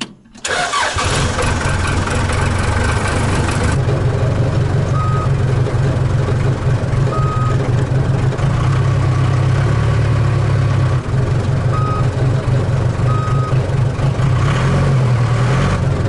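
1991 Case backhoe's diesel engine starting about half a second in and running steadily, started to test a newly fitted clutch switch. Four short high beeps sound over it, and it shuts off right at the end.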